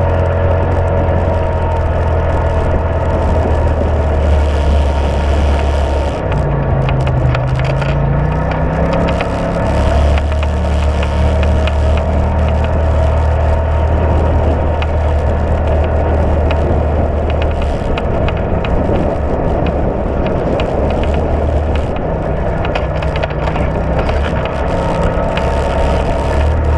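A side-by-side UTV's engine running while driving a dirt trail: a steady low drone that eases off about six seconds in and climbs in pitch as it picks back up, then eases again a little past halfway. Knocks and clatter from the rough ride run under it.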